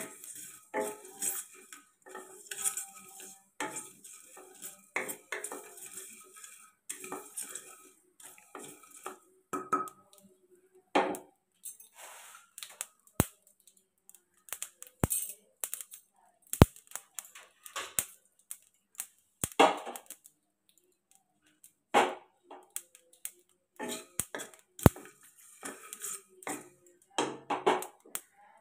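Wooden spatula scraping and stirring whole spices (panch phoron, mustard and poppy seeds) as they dry-roast in an empty non-stick kadai, in irregular strokes with short pauses. A few sharp ticks stand out in the middle.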